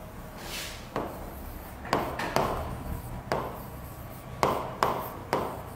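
A series of about eight sharp, irregularly spaced taps and knocks, each with a short ringing tail, plus a brief hiss near the start.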